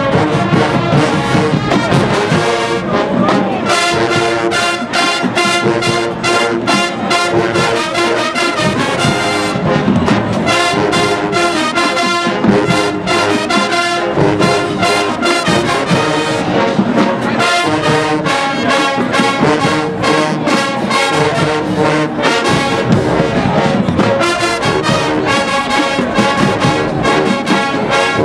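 A university marching band playing its halftime field show: loud brass, with trombones and trumpets, over the drumline's steady beat.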